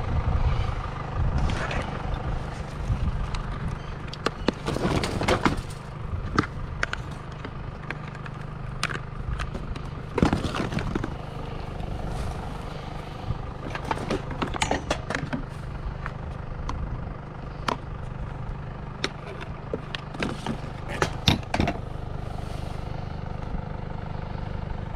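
Junk being rummaged through by hand: irregular knocks, clatters and scrapes of hard plastic and metal objects being shifted, over a steady low engine hum.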